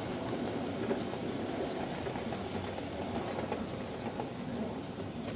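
Ride-on live steam miniature train running along its track, its wheels rolling steadily over the rails as it moves away.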